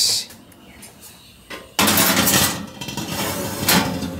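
A lidded stainless steel pot clinking, then scraping and rattling against the metal oven rack as it is pushed into the oven. There is a sharp clink at the start, and a louder spell of metal rattling from about two seconds in, with one sharper knock near the end.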